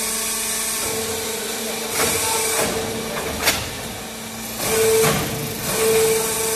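Automatic interlocking clay brick-making machine running with a steady humming drone. Louder rushing surges come about two seconds in and twice more near the end, and there is one sharp click about three and a half seconds in.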